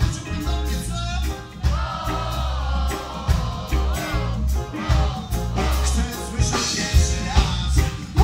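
Live reggae band playing: a male lead singer over electric guitar, keyboards, a heavy pulsing bass line and drum kit.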